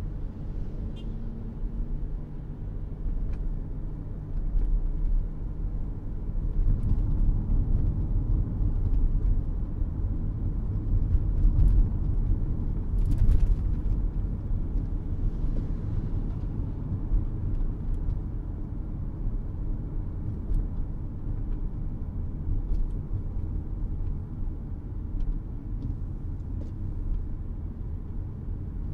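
A car driving on a city road: a steady low rumble of engine and tyres, swelling louder from about six seconds in and easing off again past the middle, with a few faint clicks.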